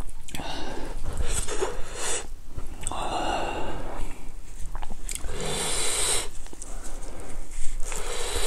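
Close-miked eating sounds of a man chewing boiled pork and spicy kimchi, with loud breaths through the nose. The sound comes in about four long pulses of roughly a second each.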